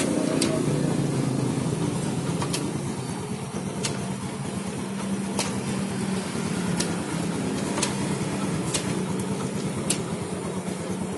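Yamaha Jupiter Z's single-cylinder four-stroke engine running steadily, test-run after its clutch-housing damper rubbers were replaced. Sharp clicks come about once every one to one and a half seconds.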